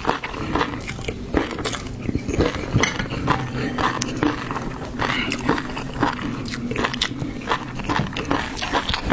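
Close-miked eating of seafood: a steady run of bites and chewing, with many small wet clicks and crunches.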